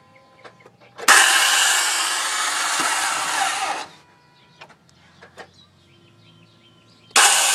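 Starter motor of a 2004 Toyota Sienna whirring and grinding for about three seconds, then winding down. It starts again near the end. The sound is the sign of a bad starter.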